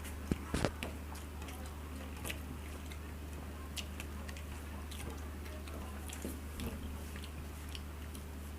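Chewing and eating sounds of a meal of mutton curry and rice: a few sharp clicks in the first second, then scattered soft clicks, over a steady low hum.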